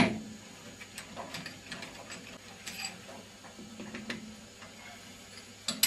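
Steel round bar being seated in the chuck of a 1A616 lathe and clamped with a chuck key. A sharp metal knock at the start, scattered metallic clicks and clinks as the key turns the jaws, and another knock near the end.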